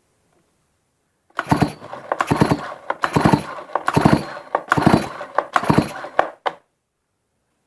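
Stihl MS-290 chainsaw's recoil starter pulled about six times in quick succession, each pull cranking the two-stroke engine over, with the spark plug out and grounded to the block for a spark check.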